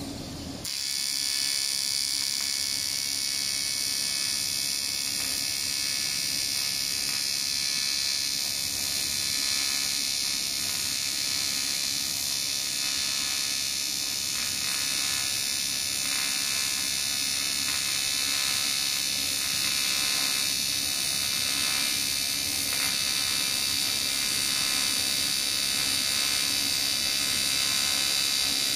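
AC TIG welding arc on aluminium from an ACO WSE 250 AC/DC TIG welder: a steady high buzzing hiss that strikes up suddenly about a second in and holds steady as the weld is run.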